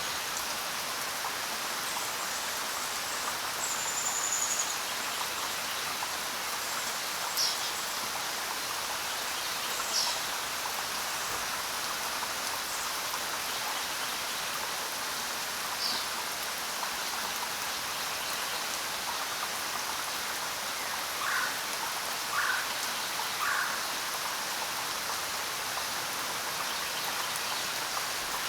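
Steady rain falling on the ground, an even hiss. A few short high bird chirps come through it, then three brief lower calls near the end.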